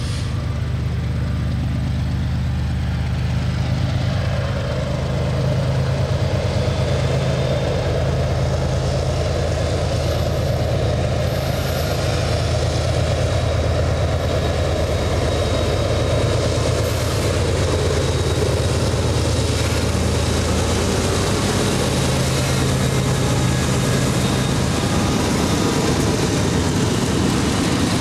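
A lash-up of GE diesel-electric freight locomotives, led by a BNSF ES44DC, working hard under heavy throttle: a deep, steady engine drone that grows louder over the first few seconds as the units approach, until the lead locomotive is passing close by at the end.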